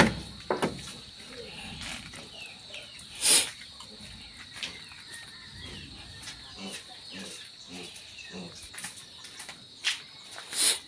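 Farmyard ambience: small birds chirping over a steady high insect-like drone, with two short, loud animal calls, one about three seconds in and one near the end, and a few soft low calls in the middle.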